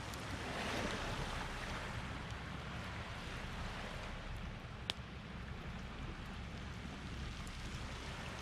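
Small waves washing on a beach, with one wave surging up about a second in. A single sharp click about five seconds in.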